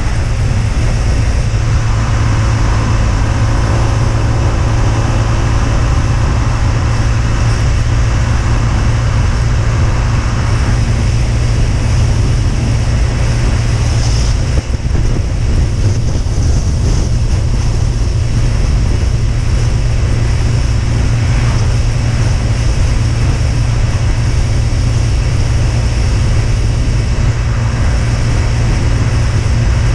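Husqvarna Svartpilen 125's single-cylinder engine running steadily under way, with road and wind noise, and a brief dip in level about halfway through.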